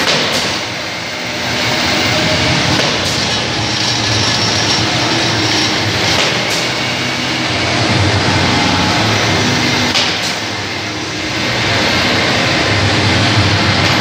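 Manual keg washer running, water jets spraying inside its clear washing covers: a steady, loud rushing noise with a few sharp clicks, easing off briefly about a second in and again near the end.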